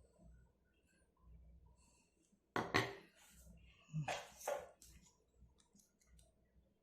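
Tweezers working the small pins of a mobile charger's cable connector, pressing them tight: two short bursts of sharp clicks and rattling, about two and a half seconds in and again around four seconds in, with faint handling ticks between.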